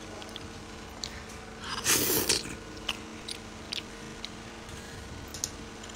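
Scattered small clicks and taps close to the microphone, with a short rustling burst about two seconds in, over a faint steady hum.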